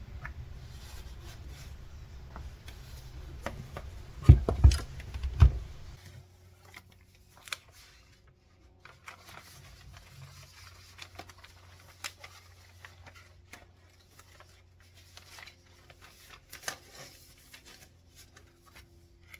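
Desk handling sounds: three heavy thumps about four to five seconds in, then sheets of paper rustling and being handled, with scattered light taps and clicks.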